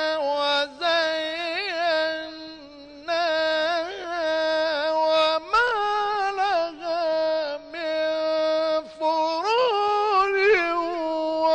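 Male Quran reciter chanting in the ornate mujawwad style: long held notes with trills and pitch turns, broken by short breaths between phrases.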